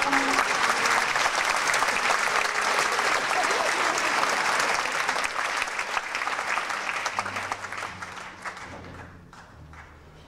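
Theatre audience applauding, a dense clatter of clapping that dies away near the end, as low sustained music notes begin underneath.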